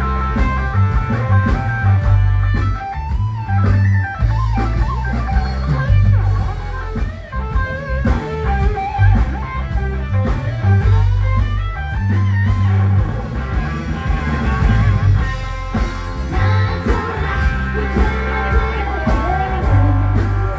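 Live band playing amplified music, led by an electric guitar over heavy bass and a steady beat.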